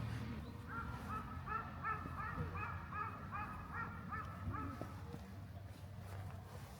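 A bird calling in a rapid series of short, clear notes, about three a second, for about four seconds, over a low outdoor rumble.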